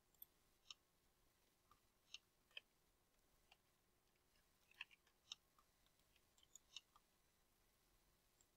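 Near silence broken by about a dozen faint, separate clicks from a computer mouse and keyboard.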